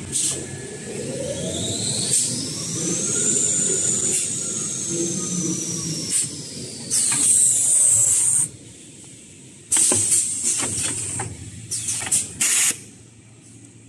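Toilet-paper roll packing line running with a steady drone. A whine rises over about two seconds and then slowly falls. Several sharp hisses of compressed air come from the bagging machine's pneumatics; the longest and loudest lasts about a second and a half, about seven seconds in, and shorter ones follow near ten seconds and twelve and a half seconds.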